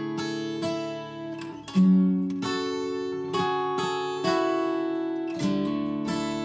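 Background music on acoustic guitar: plucked chords left to ring, with a new chord or note struck about every second.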